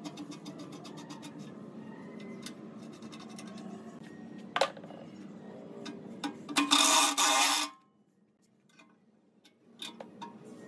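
Hand tools working a steel eye bolt into an engine's fuel tank: light metallic clicks and scrapes, a sharp click near the middle, and a loud rasping scrape about a second long some seven seconds in.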